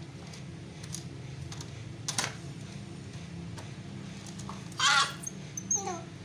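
Small electric motor and gears of a 1:12 RC Formula 1 toy car whirring with a steady low buzz. About five seconds in, a short, loud, high-pitched cry cuts through, followed by a brief falling squeal.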